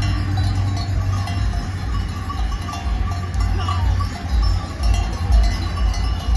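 Bells hung on grazing sheep clanking and ringing irregularly as the animals move, over a steady low rumble.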